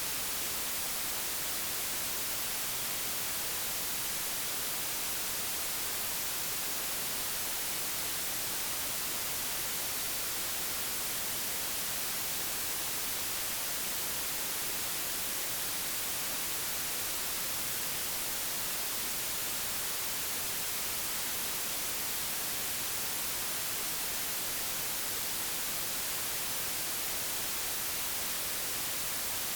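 Steady, unchanging digitally generated white noise: an even hiss, with no events or changes.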